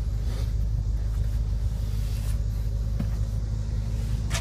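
Rear-seat fold-down latch of a BMW M6 Gran Coupe being worked, giving a few faint rustles and two short clicks, the sharper one near the end. Under it runs a steady low rumble.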